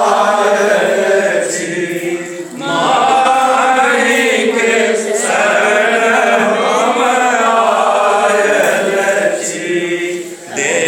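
A group of men singing a Maithili bhajan together in long chanted phrases, with short breaks between phrases about two and a half seconds in and again near the end.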